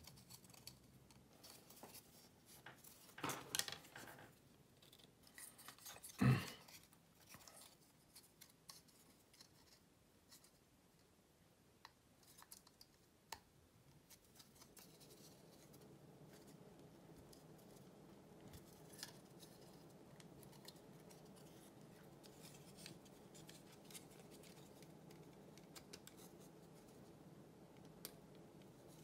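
Thin laser-cut plywood model parts being handled and pressed together: scattered light clicks and scrapes, with a sharp snap about six seconds in. A faint steady hum comes in about halfway through.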